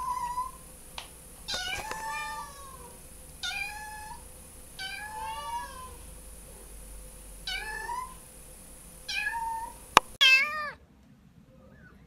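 Kitten meowing over and over, short high meows that rise and fall, one every second or so. About ten seconds in, a click and one louder meow, then quiet.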